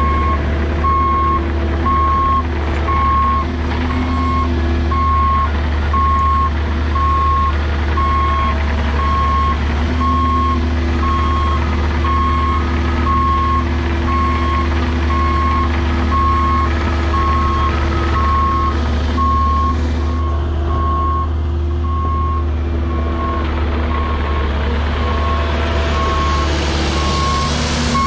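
Cat 306 mini excavator's diesel engine running steadily while it works the blade, with a backup alarm sounding a steady beep about once a second.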